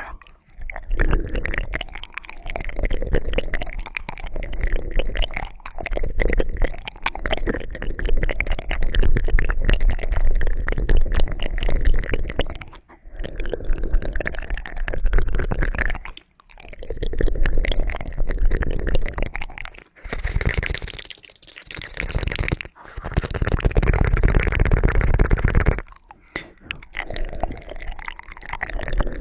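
Close-miked ASMR trigger sounds: dense, wet crackling and squishing over a low rumble, in stretches of a few seconds broken by short pauses.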